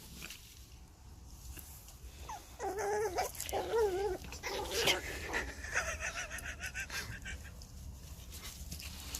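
A dog whimpering: a run of wavering cries that starts a couple of seconds in and trails off after about six seconds.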